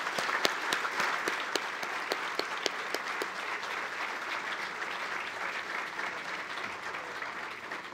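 A large audience applauding, many hands clapping in a dense, steady patter that eases slightly toward the end, with some louder single claps standing out close by.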